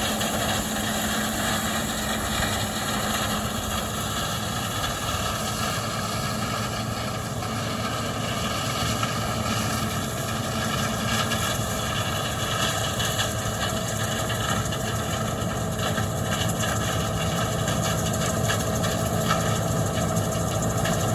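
Large farm harvest machine's engine running steadily, a constant drone with a steady mechanical whine over it.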